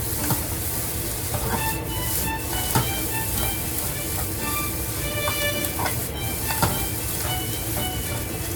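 Fried rice sizzling as it is stir-fried in a hot pan, with a few sharp clicks of the utensil against the pan.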